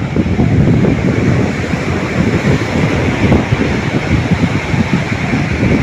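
Sea surf washing onto a beach, with a steady rushing noise and heavy wind buffeting on the microphone.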